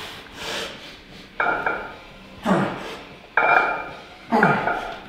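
Barbell bench press reps: the iron weight plates clink and rattle on the bar with each rep, about once a second, each rep with a forceful exhale from the lifter.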